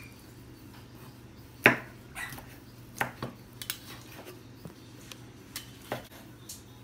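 Large kitchen knife chopping cooked beef suadero on a wooden cutting board: about ten irregular knocks of the blade striking the board, the loudest about a second and a half in.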